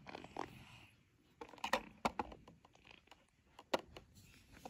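Handling noise from a small metal-and-plastic construction-kit toy: soft rustling and a few scattered light clicks, the sharpest about three and a half seconds in.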